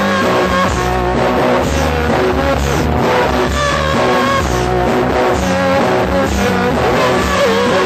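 Lo-fi rock song playing: guitars and bass over a steady drum beat, with sustained held notes.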